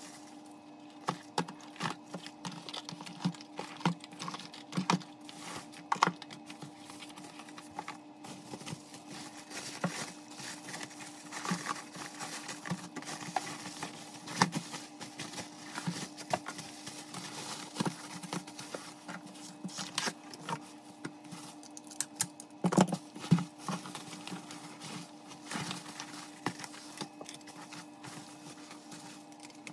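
Bubble wrap crinkling and rustling in irregular sharp clicks as it is wrapped around small cardboard boxes, over a steady low hum.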